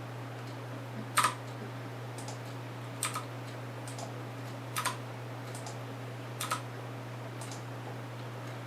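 Sharp clicks from working a computer while drawing a schematic: four distinct clicks about every second and a half to two seconds, with fainter ticks between. A steady low hum runs underneath.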